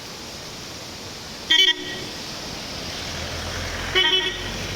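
Two short vehicle horn toots about two and a half seconds apart, over a steady hiss and a low vehicle rumble that swells near the end.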